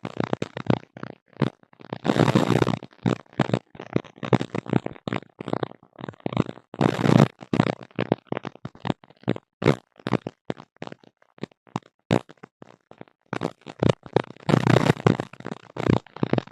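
A tablet picking up a mysterious strange noise: irregular bursts of crackling, rushing noise that cut in and out abruptly, with short silent gaps between them. Longer bursts come about two seconds in, around seven seconds in, and near the end.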